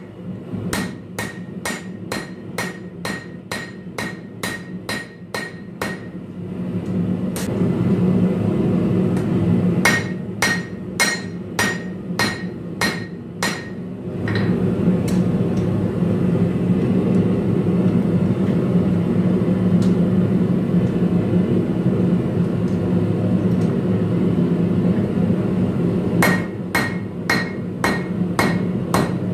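Hand hammer striking hot Damascus steel on an anvil to straighten a knife tang. The blows come in quick runs of about three a second, each with a ringing ping. The hammering pauses for about twelve seconds midway and starts again near the end, all over a steady low roar.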